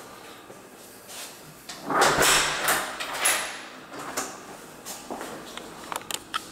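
A door being moved and shut: a scraping, rubbing sound about two seconds in that lasts over a second, then several light clicks and knocks.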